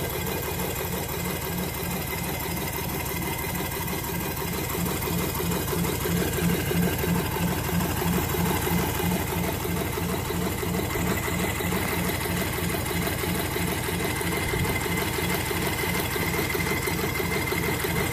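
Stuart Turner Swan twin-cylinder model marine steam engine running steadily on compressed air, with a fast, even mechanical rhythm.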